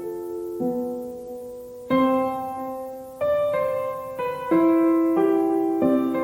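Background music: slow solo piano playing sustained chords, each struck and fading before the next, about one a second.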